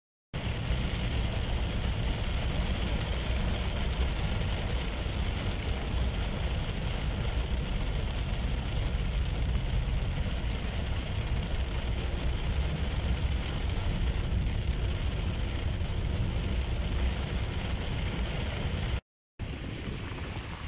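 Steady rumble of a car driving on a rain-soaked road, heard from inside the cabin, with heavy rain on the windshield. It drops out about 19 seconds in and gives way to quieter wind noise on the microphone beside a flooded street.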